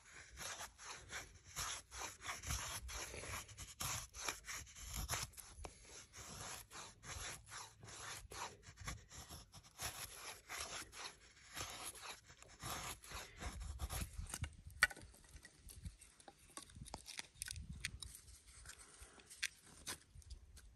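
Stroup puukko knife blade shaving a wooden stick: many short scraping strokes of steel on wood, coming thick and fast at first and thinning out after about twelve seconds.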